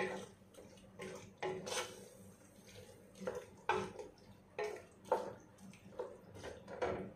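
Wooden spatula stirring chicken pieces in a stone-coated cooking pot, scraping and knocking against the pot in repeated strokes, roughly one or two a second.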